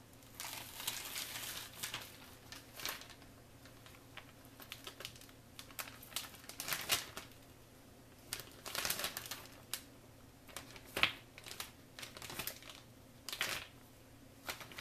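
Plastic zipper storage bag crinkling and rustling in irregular bursts as it is opened and handled and frozen puree cubes are dropped into it.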